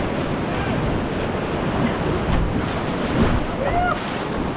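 Whitewater rapids rushing steadily around a raft, with wind on the microphone. Faint voices come in near the end.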